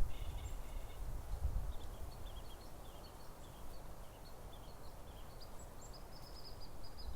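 Wind buffeting the microphone in low gusts, strongest in the first couple of seconds, with small birds giving short high chirps throughout.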